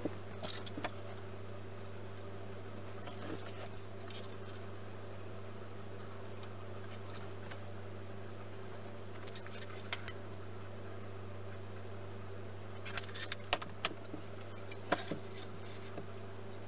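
Scattered light clicks and taps from handling tools on an MDF board, a tape measure and an aluminium spirit level, with a cluster of sharper clicks about thirteen to fifteen seconds in. A steady low hum runs underneath.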